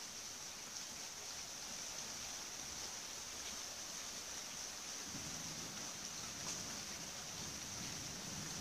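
Steady hiss of falling rain with a few faint drop ticks; a faint low rumble joins about five seconds in.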